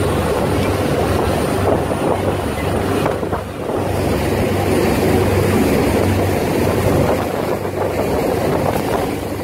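Fishing boat's engine running steadily under way: a constant low hum beneath a loud rush of wind and water past the hull.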